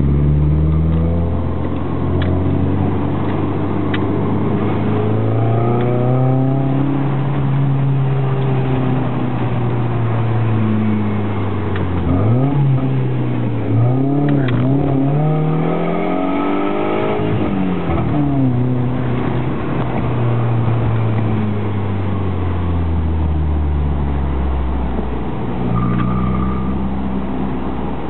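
Alfa Romeo 156 Twin Spark four-cylinder engine through an aftermarket T.Welding sport muffler. The engine note climbs slowly and holds, then rises and drops quickly several times around the middle, then eases off and settles to a low, steady note near the end.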